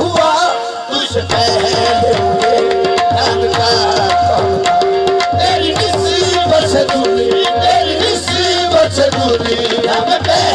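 Qawwali ensemble music: harmonium holding a steady drone and repeating a short note figure over a driving tabla beat.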